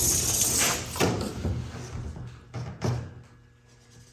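Building material being handled: a scraping slide for about a second, then a few separate knocks and thumps.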